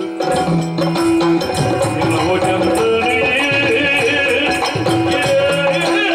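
Yakshagana ensemble music: held melodic notes that step between pitches, over dense chende and maddale drum strokes and jingling percussion.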